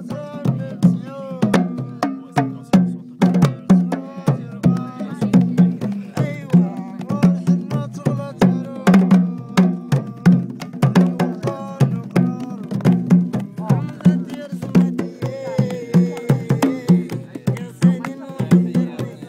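Several clay-bodied hand drums played together in a fast, steady rhythm, with voices chanting over the drumming.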